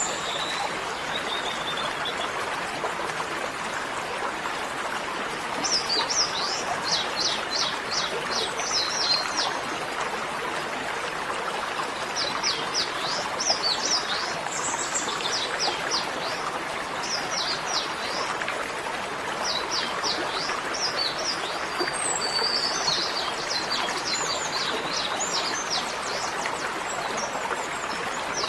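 Birds calling in repeated runs of quick, downward-sweeping chirps, over a steady rushing background noise.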